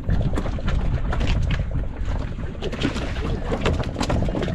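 Wind rumbling on the microphone aboard a small fishing boat at sea: a steady, loud low rumble with many irregular clicks and knocks over it.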